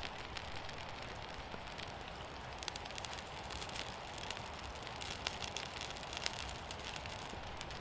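Newly lit campfire of birch bark and thin twigs crackling: many small sharp pops over a steady hiss, the pops thickest in the middle. The wood is wet and the fire is slow to take.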